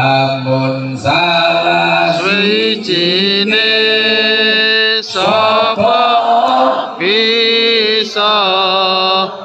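Amplified male voice chanting Islamic devotional verses (sholawat) in long, held, ornamented phrases, with short breaks about every one to two seconds.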